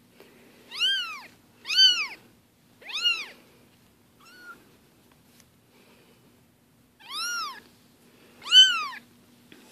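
Four-week-old Bengal kittens mewing: five high-pitched mews, each rising then falling in pitch, three close together at the start and two more near the end, with a faint short one in between. The kittens are away from their mother for the first time and are calling for her.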